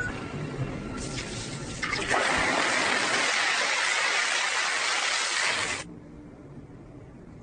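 Glowing hot steel quenched in water, with a loud, even hiss of boiling water and steam lasting nearly four seconds, then cut off suddenly. Before it, the ring of the last hammer blows on the anvil fades.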